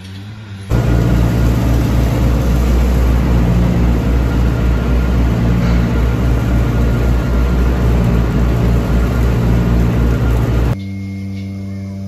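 Tractor engine running with a heavy, steady, pulsing low rumble as it drives a feed mixer wagon through the barn. The rumble cuts off suddenly near the end and a quieter steady hum takes over.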